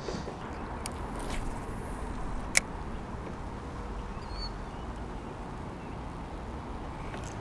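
Steady outdoor background on a kayak: low rumble and hiss, with a single sharp click about two and a half seconds in and a faint bird chirp near the middle.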